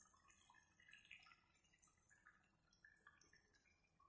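Near silence, with faint scattered little pops from the soya chunk and potato gravy simmering in the pan.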